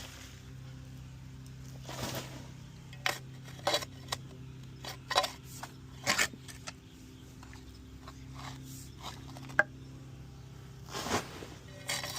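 A shovel scraping and striking in hard-packed dirt, in irregular strokes about a second or two apart, over a steady low hum.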